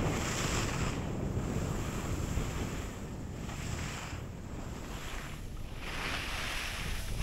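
Wind rushing over a camera microphone as a skier glides down a groomed piste, with the hiss of skis sliding over packed snow swelling and fading through the turns.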